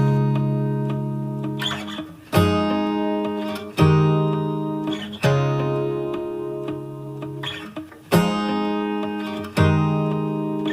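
Background music: strummed acoustic guitar chords, struck about every second and a half and left to ring.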